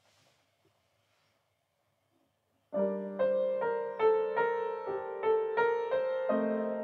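Near silence at first, then an upright piano starts about three seconds in: chords and notes struck at an even pace, a little over two a second, each left ringing.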